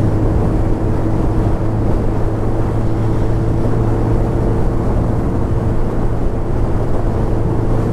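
Suzuki Hayabusa's inline-four engine running at a steady cruise under heavy wind rush, a constant hum that holds its pitch.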